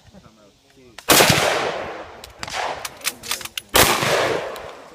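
Two loud gunshots about two and a half seconds apart, each followed by a long fading echo, with several fainter sharp cracks in between.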